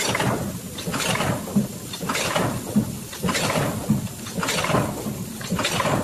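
Drink-carton filling and packaging machine running through its cycle, a mechanical clatter that repeats about once a second as filled cartons are pushed out onto the conveyor.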